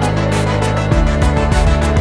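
Background music with a steady beat; a deeper pulsing bass beat comes in about a second in.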